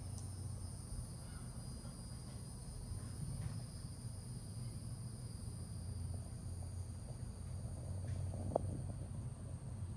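A steady high-pitched insect drone over a low steady hum, with a brief click near the end.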